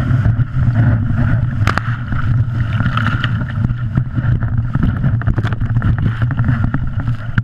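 Loud rush of whitewater around a kayak running a steep cascade, with many splashes and spray hitting close to the kayak-mounted camera.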